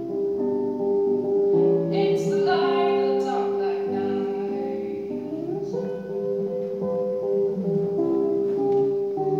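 A singer accompanying herself on guitar: slow, ringing guitar notes with sung phrases, the voice strongest a couple of seconds in.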